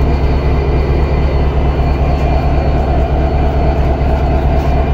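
Diesel locomotive engine idling, a steady, even low hum.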